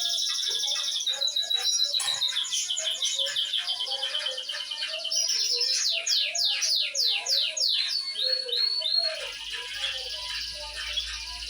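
Domestic canary singing a long, continuous song of rapid high trills, with a run of fast down-slurred notes about six seconds in.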